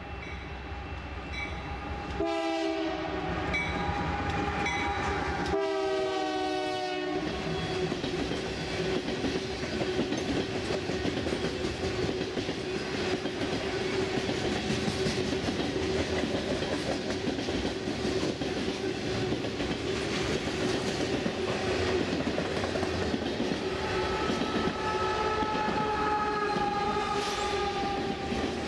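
Freight train passing close by. The lead Canadian Pacific GE AC4400CW locomotive sounds its horn in several blasts over the first seven seconds or so. Then a long string of tank cars and covered hoppers rolls by with steady wheel-on-rail noise.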